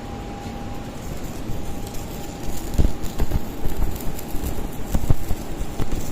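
Electric arc welding from an AOTAI MMM 400 welder: a steady crackling, sputtering arc with irregular sharp pops, growing louder about two and a half seconds in.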